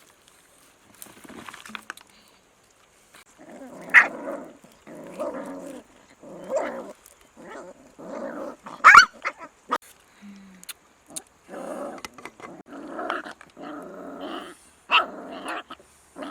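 A dog growling in a string of short rough bursts, about one a second, with a sharp bark-like yelp about nine seconds in.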